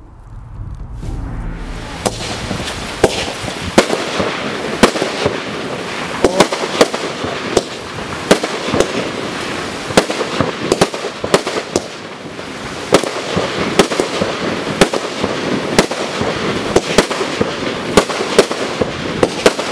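ZEN Red Club 25-shot fireworks cake firing. Sharp shots come about one to two a second, starting about two seconds in, as red strobe-tailed shells burst into red strobe willow. A dense, steady crackle of strobing stars runs under the shots.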